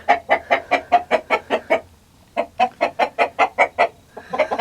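Chicken clucking in a quick run of short clucks, about six a second. It breaks off for a moment about two seconds in, then carries on.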